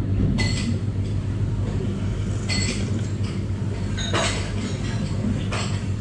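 Chopsticks and bowls clinking lightly four times as someone eats and drinks miso soup, over a steady low hum.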